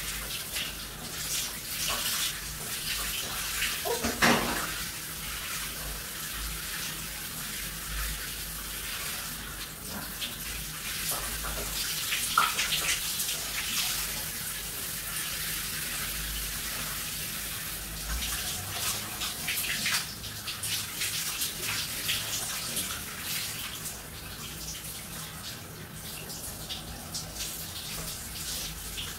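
Shower spray running, water splashing irregularly onto a person and the tiled floor. A brief, louder knock about four seconds in.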